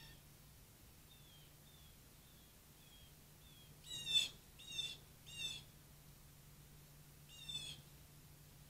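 American crows calling: a soft, high call repeated about twice a second, then loud nasal caws, three in quick succession in the middle and one more near the end.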